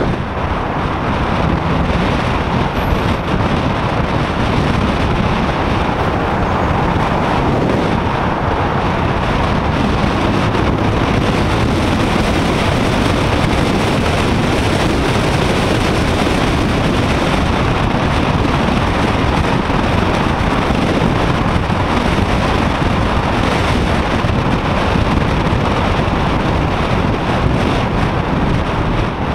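Steady rush of wind on an action camera's microphone while riding a motorcycle, with the motorcycle's engine and road noise mixed in underneath.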